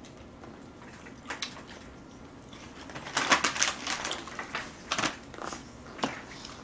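Close-miked eating sounds: chewing and mouth noises from a spoonful of rice mixed in black-bean noodle sauce, densest about three seconds in. A few clicks follow as a wooden spoon scrapes and taps inside a paper instant-noodle cup.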